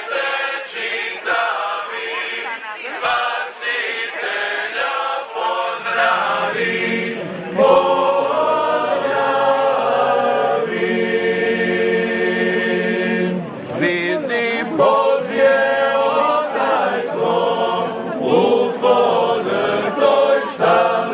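A choir singing a cappella, holding one long chord about halfway through, with a brief break just after it before the singing goes on.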